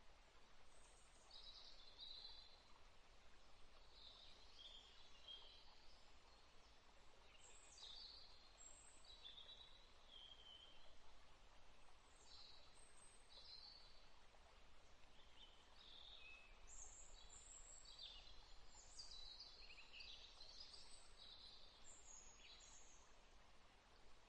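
Faint birdsong: several birds giving short chirps and brief phrases on and off, busiest in the second half, over a soft steady hiss of a flowing stream.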